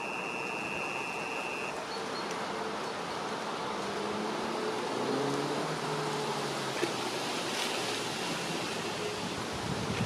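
Steady rushing outdoor ambience, with a thin high steady whine that stops a couple of seconds in and a faint low engine hum that rises and falls in the middle.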